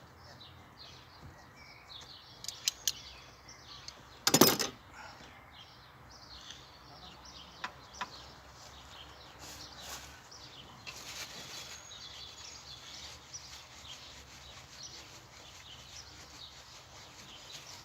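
Birds chirping steadily in the background, with a few light clicks and one loud, short knock about four seconds in from work on the car.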